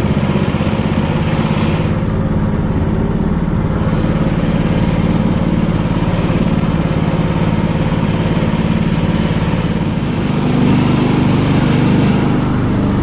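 Engine of a karakat, a homemade all-terrain vehicle on large low-pressure tyres, running steadily under load as it drives off-road. It gets louder about ten and a half seconds in.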